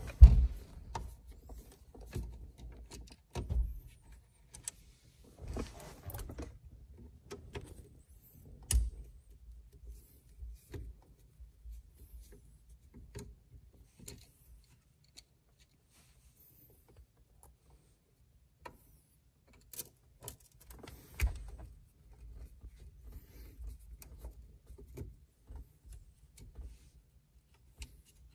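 Phillips screwdriver working the screws out of a GMC truck steering column's turn signal switch: scattered small metallic clicks and short scrapes of the tip turning in the screw heads, with dull knocks as the hands bump the column. The loudest clicks come just after the start and again about two-thirds of the way through.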